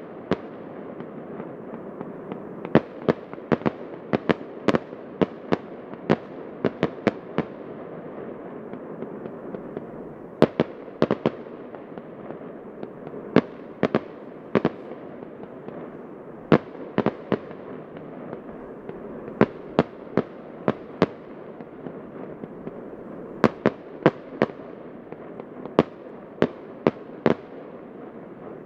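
Fireworks display: dozens of sharp bangs from bursting shells, coming irregularly and often in quick clusters, over a steady background noise.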